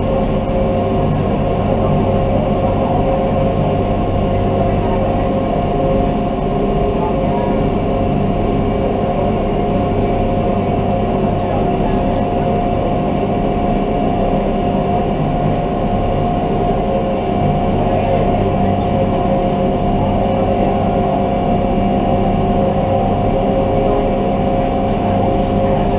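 Resort shuttle boat's engine running steadily while cruising, a constant drone with several steady hums, heard from on board.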